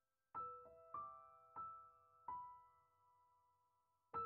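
Soft, slow background piano music: single struck notes ringing out and fading, a short run of five, a pause of nearly two seconds, then a new phrase starting near the end.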